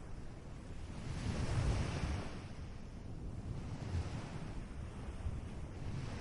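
Ocean waves washing onto a shore as a steady wash of surf, swelling with a breaking wave about a second in and again more softly later.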